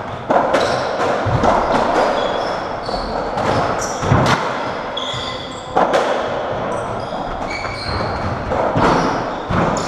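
Racketball ball knocking off rackets, walls and the floor of a squash court, irregular sharp hits that echo around the court, with short high squeaks of shoes on the wooden floor over a steady hall noise.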